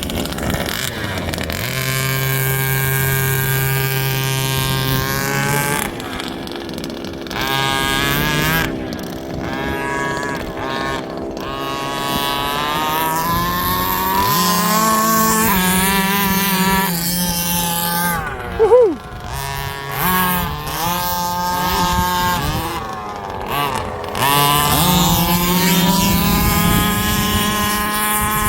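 Petrol engines of large-scale RC cars running and revving, their pitch rising and falling repeatedly as the throttle is opened and eased, with a short loud spike about two-thirds of the way through.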